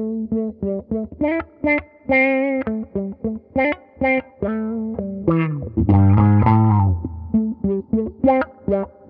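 Electric guitar played through a Mu-Tron Micro-Tron IV envelope filter in low-pass mode: short, funky plucked notes, each given an auto-wah sweep by the filter, with a longer held chord about six seconds in. The filter's peak and gain knobs are being turned during the playing, so the wah character shifts.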